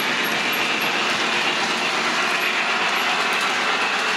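Lionel model train passing close by: a New York Central steam locomotive followed by passenger cars, its wheels and motor running on the track in a steady rolling rumble.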